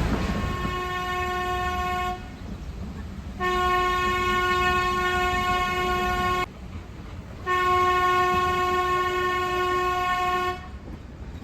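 Nilgiri Mountain Railway steam locomotive's whistle sounding three long steady blasts, each two to three seconds with about a second between them, over the low rumble of the moving train.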